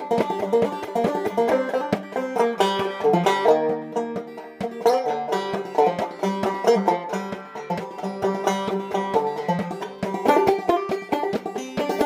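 Banjo played clawhammer style: a quick, continuous run of struck single notes and brushed strums in an old-time fiddle-tune rhythm.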